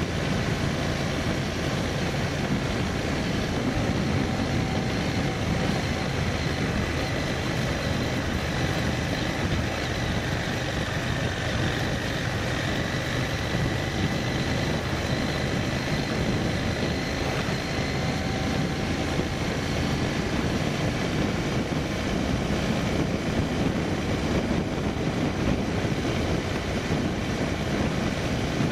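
Vehicle on the move along a road: an engine running steadily under a constant rush of wind and road noise, with a faint steady whine on top.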